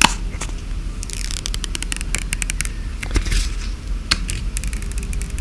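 Protective plastic film being peeled off a new iPhone 15, crackling and scraping with many quick clicks.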